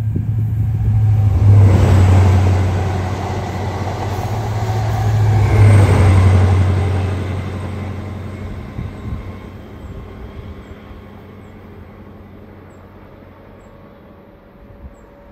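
GWR Class 43 High Speed Train with diesel power cars passing close and running away on jointless track. Its low engine drone and rail noise swell twice, about two and six seconds in, then fade steadily as the train draws into the distance.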